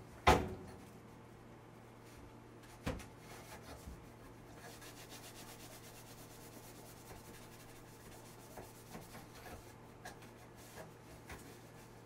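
Cloths wiping and rubbing along the metal filter rail inside a range hood, a faint scratchy friction. A sharp knock comes just after the start and a softer one about three seconds in.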